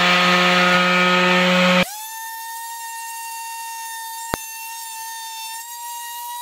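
Electric orbital sander running on pallet wood: a loud steady hum with the hiss of sandpaper on the slats, which cuts off abruptly about two seconds in. After that comes a quieter, steady high-pitched motor whine, with one sharp click a little past four seconds.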